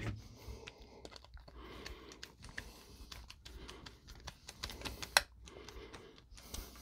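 Faint scattered clicks and scraping of a screwdriver turning a brass terminal screw down on a plastic light fixture base, with the plastic fixture being handled.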